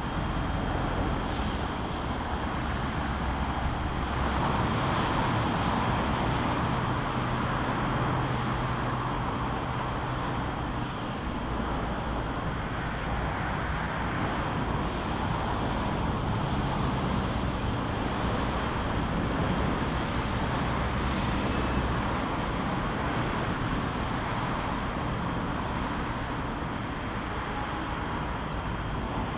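Steady hum and rumble of electric trains in a station yard, with a faint steady high whine.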